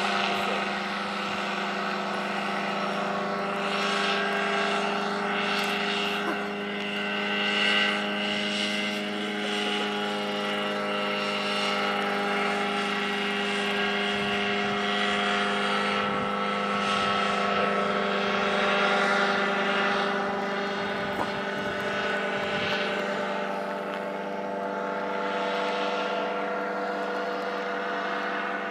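Fresh Breeze BulliX paramotor trike's engine and pusher propeller droning at a steady pitch as it flies past overhead.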